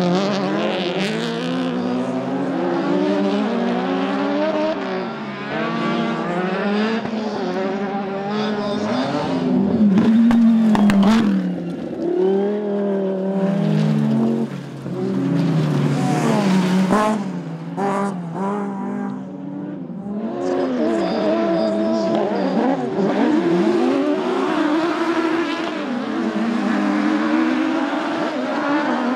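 Autocross race car engines at full throttle, one car after another, their pitch repeatedly rising and dropping through revving and gear changes.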